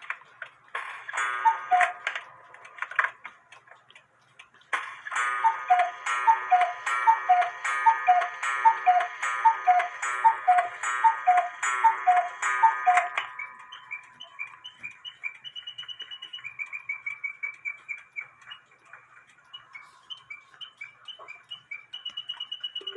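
Schmeckenbecher singing bird cuckoo clock striking the hour: a run of about a dozen evenly spaced two-note cuckoo calls from its bellows-and-pipe cuckoo, followed by its mechanical singing bird, high chirping whistle notes made by a battery motor driving a bellows through a whistle.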